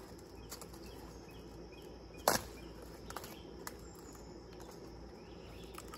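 Cabbage head being harvested from its stalk: one sharp crack about two seconds in, with a few lighter snaps and leaf rustling around it.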